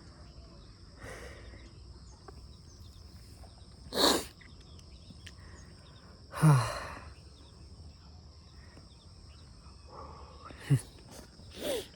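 Crickets chirring steadily, high-pitched, with a man's breathy sighs over them: a sharp breathy puff about four seconds in, a falling sigh about two seconds later, and two short voiced sounds near the end.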